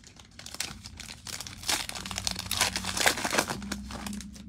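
Trading-card pack wrapper crinkling and tearing as a pack is opened and the cards are handled, loudest in the middle.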